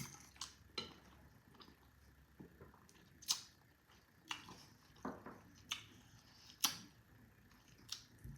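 Light, irregular clicks and taps of a fork against a plate while eating, about nine in all.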